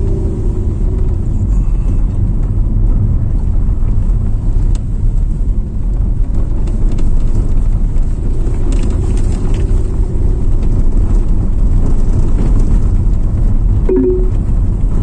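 Steady low rumble of a car moving along a rough dirt road, heard from inside the cabin: engine and tyre noise with occasional small knocks.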